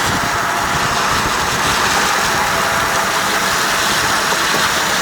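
Heavy rain beating down on a car: a loud, steady, dense rush full of fine patter.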